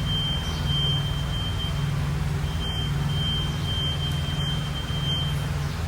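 Steady low mechanical hum with a thin, high-pitched electronic beep tone held over it. The tone breaks off for a moment about two seconds in and again near the end.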